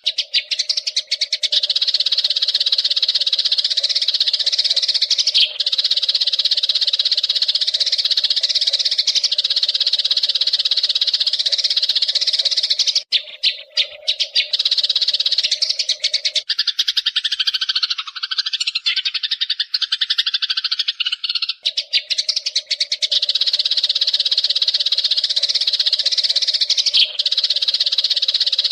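Eurasian tree sparrows chattering rapidly and without pause, an agitated sparrow chatter. The chatter breaks off briefly about halfway through, and for a few seconds after that a lower, swooping call takes over before the dense chatter returns.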